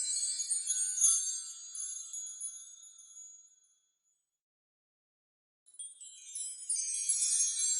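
Fairy dust magic sound effect: a shimmer of high tinkling chimes and bells with a sharp ding about a second in, fading away by about four seconds. After nearly two seconds of silence a new shimmer swells in.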